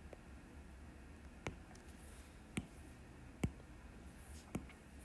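Faint clicks of a stylus tip tapping on a tablet's glass screen while handwriting: four sharp clicks, about a second apart, over a low steady hum.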